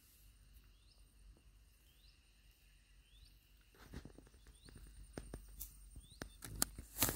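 A bird's short rising chirps, repeated about once a second, over quiet surroundings. From about four seconds in come irregular clicks and rustles, getting louder toward the end, as a freshly caught tilapia is gripped and unhooked by hand.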